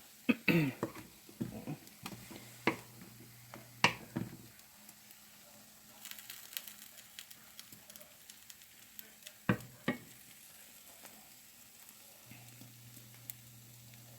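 Omelette frying in a pan with a faint crackling sizzle, and several sharp knocks of a utensil against the pan: a cluster in the first four seconds and two more about ten seconds in.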